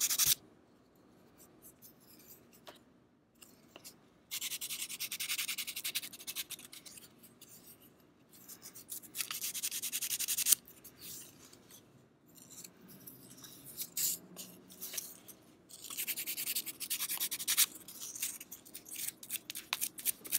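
Small scraps of sandpaper rubbed by hand against the wooden scales of a straight razor: spells of scratchy strokes a few seconds long, with short pauses between. Nearly silent for the first few seconds.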